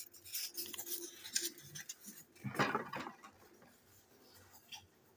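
Small plastic clicks and rustling as a Plarail toy tank wagon is handled and set down on a plastic surface. A louder rustle comes about two and a half seconds in, then only faint scattered sounds.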